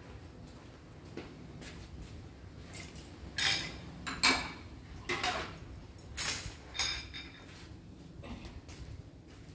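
Cooking pots and utensils clinking and clattering off-camera: about half a dozen sharp knocks, each with a short ring, bunched in the middle few seconds.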